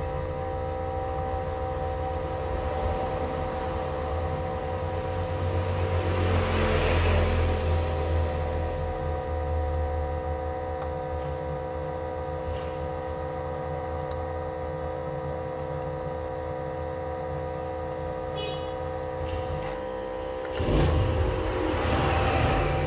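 Steady machine hum with a low rumble, swelling louder twice, about six seconds in and again near the end.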